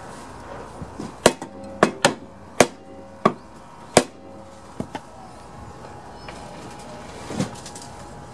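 A small mallet striking a lawn mower's blade and blade bolt on the crankshaft end: six sharp metallic blows in about three seconds, some ringing briefly, then two lighter taps. It is an attempt to knock the bent crankshaft back straight.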